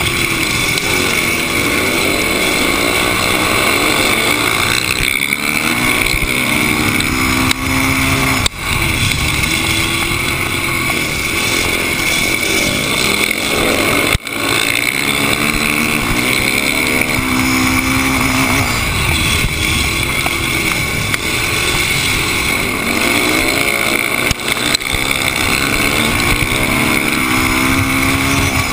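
Flat-track racing motorcycle's engine heard close up from on board, repeatedly revving up on the straights and easing off into the turns. Two brief sharp dips in the engine sound come about a third of the way and halfway through.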